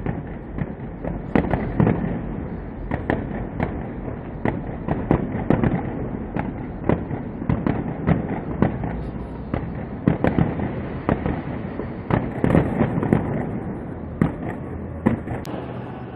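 Fireworks display: a dense, unbroken barrage of bangs and crackling, several bangs a second, going on without a pause.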